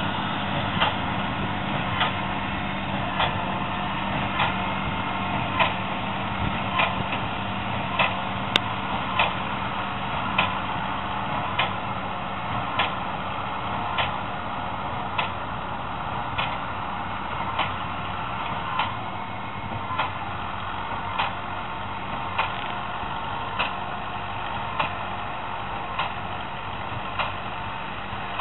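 Tractor engine running steadily under load while pulling a Claas large square baler, with the baler's plunger knocking regularly a little less than once a second, slowly growing fainter.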